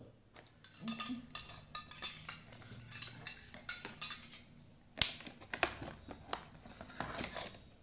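Plastic blister packaging crackling and clicking as miniature stainless-steel toy kitchen utensils are worked free of the card, with light metal clinks; one loud sharp click about five seconds in.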